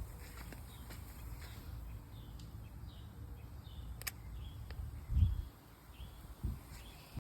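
Outdoor ambience: faint, scattered bird chirps over a low rumble, with a sharp click about four seconds in and two low thumps near the end, the first the loudest.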